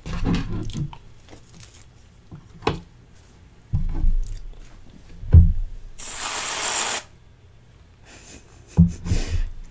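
Close-up tabletop handling noises while eating: scattered knocks and thumps of cutlery and a plastic cake container. About six seconds in comes a rustle lasting about a second.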